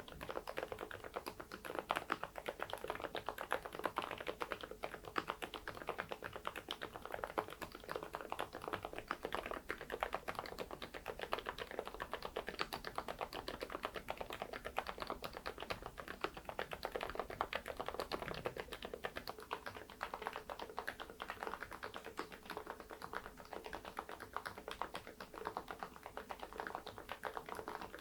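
Continuous fast typing on a mechanical keyboard fitted with thick PBT Cherry-profile keycaps: a dense, even stream of key clacks.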